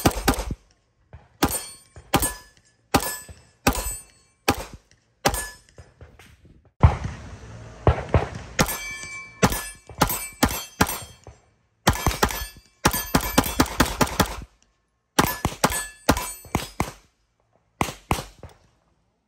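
Staccato P pistol fired in a long string of single shots, about one and a half a second at first and faster and more crowded in the middle. Each report is sharp and cut off short.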